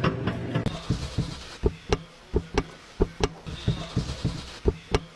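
A series of sharp knocks at uneven intervals, about two or three a second and often in pairs, after a steady low hum fades out in the first half second.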